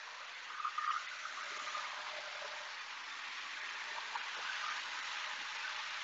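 Dyson Ball Animal 3 upright vacuum running on a hard floor with its brush bar switched off: a steady hiss of suction that grows slightly louder.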